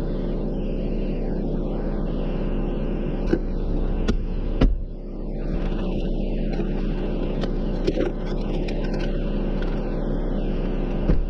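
A vehicle engine running steadily with a low rumble. A few sharp knocks sound over it, the loudest about halfway through.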